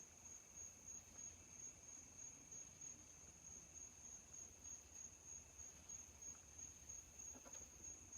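Near silence: faint room tone with a steady, thin high-pitched whine throughout.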